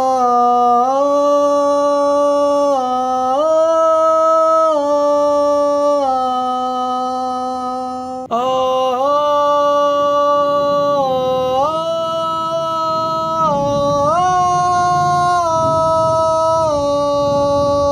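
A man sings naat vocals without instruments, holding long, steady notes that step up and down between pitches. One phrase ends about eight seconds in and the next begins at once.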